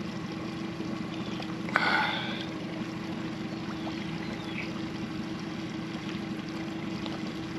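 Boat's outboard motor idling steadily with a low, even hum. About two seconds in there is a brief, louder knock-like noise.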